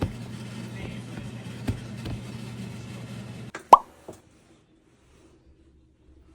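Steady low hum that cuts off abruptly about three and a half seconds in. Right after the cut comes a single short 'plop' sound effect, bright and falling in pitch, then faint room tone.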